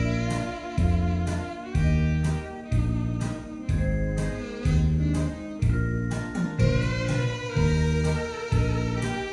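Tenor saxophone playing a melody over a backing track with a heavy, steady beat about once a second.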